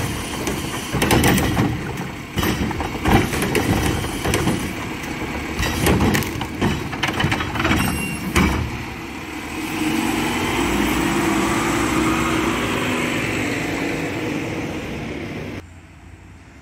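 Mack LR garbage truck's Curotto-Can arm dumping a wheeled trash cart: a run of bangs and clatter as the cart is tipped, shaken and set back down, then a steady, louder run of the truck's engine and hydraulics for several seconds, which cuts off suddenly near the end.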